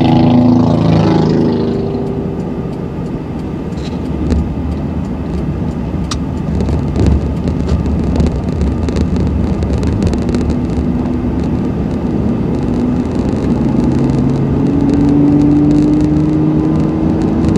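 Honda Ridgeline's V6 engine and tyre noise from a truck driving on the road while towing a trailer. The engine's pitch climbs steadily over the last few seconds as it accelerates under the load.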